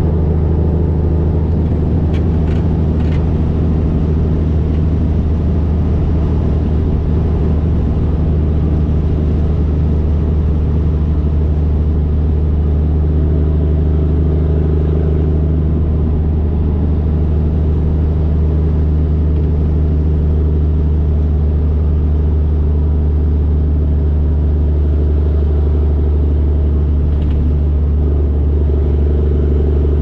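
Cabover Peterbilt 362 semi truck's diesel engine droning steadily at highway cruise, heard from the truck, with road noise under it.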